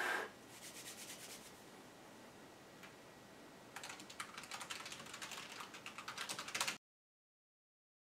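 Mechanical keyboard keys clattering in a fast run of sharp clicks as the alphabet A to Z is typed in about three seconds, after a few scattered key clicks and a short sound at the very start. The clicks cut off suddenly near the end.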